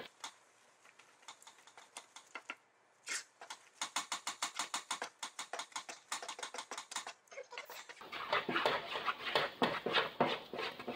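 Wooden spoon stirring thick chocolate fudge and marshmallows fast in a stainless steel pot: a quick, even run of sticky slaps and scrapes, about five strokes a second, growing louder and fuller in the last few seconds.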